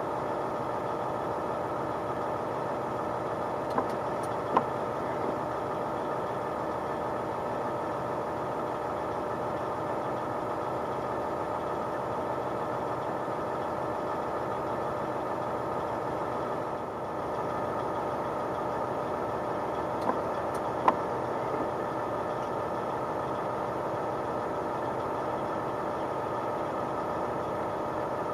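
Diesel engine running steadily, with two pairs of short sharp clicks a little under a second apart.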